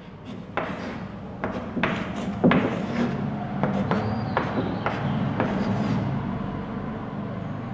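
Chalk writing on a blackboard: a run of short taps and scrapes as the figures are chalked, over a steady low hum.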